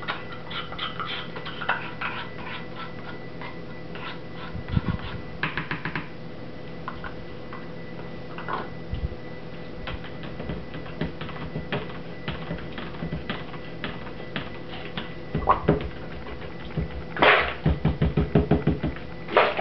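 Stick blender moving through thick cold process soap batter in a plastic tub: repeated clicks and knocks of the blender head against the tub over a faint steady hum. Near the end comes a quicker run of knocks, about four a second.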